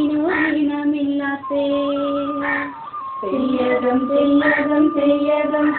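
A song: a high voice sings long held notes over a sustained musical accompaniment, pausing briefly about a second and a half in and again about three seconds in.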